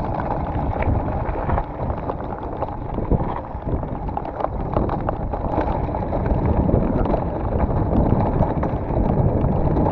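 Scott Genius e-mountain bike coasting down a rocky gravel track: tyres crunching over loose stones, the bike rattling over bumps, and wind buffeting the microphone, all growing louder toward the end.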